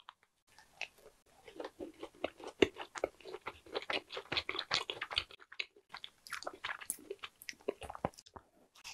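A person biting into and chewing a dark chocolate macaron, a dense run of small crisp crunches from the shell, with a short pause about halfway through before a second run.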